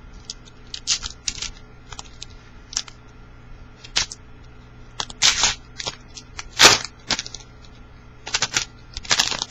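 Trading-card pack wrapper being crinkled and torn open and cards handled: a series of short, sharp crackles and rustles at irregular intervals, the loudest about two-thirds of the way through.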